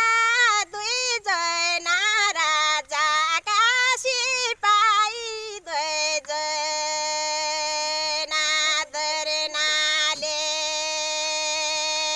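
A woman singing a thadi bhaka, a Nepali folk melody, solo and unaccompanied in a high, strained voice. She wavers through short ornamented phrases, then holds one long lower note for about the last six seconds before breaking off suddenly.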